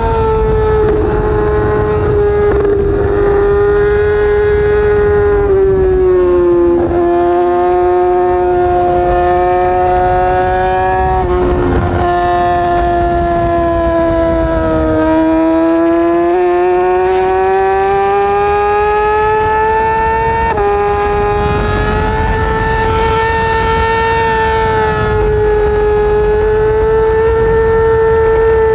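A Yamaha R6's inline-four engine, breathing through an Akrapovic short end can, running high in the revs while the bike rides at speed, with wind rush underneath. The high engine note sags slowly at first, climbs over a few seconds, jumps up sharply about twenty seconds in, then holds steady.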